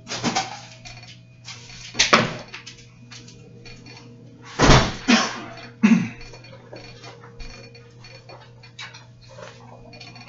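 Household knocks and clatter in a small room: scattered light clicks, with louder sudden thumps about two seconds in and again around five to six seconds in.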